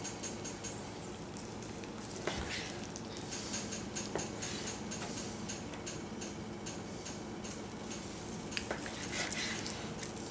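A long slicing knife sawing through cooked corned beef on a wooden cutting board: soft scraping and fine ticking strokes, with a few sharper clicks, over a steady low background hum.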